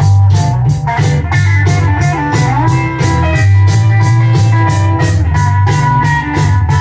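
Rock and roll record playing on a Lenco L90 belt-drive turntable through a Shure M70B cartridge: an instrumental break of bending electric guitar over bass and a steady drum beat.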